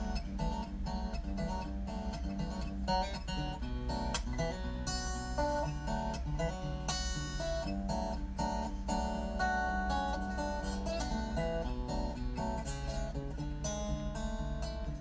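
Background music: a plucked acoustic guitar arrangement playing steadily.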